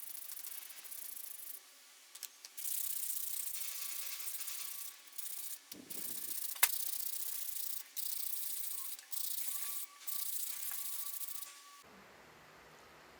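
Sanding on the drill stand's metal parts: a hissy scraping in several spells of a second or two with short breaks between, and one sharp click about six and a half seconds in.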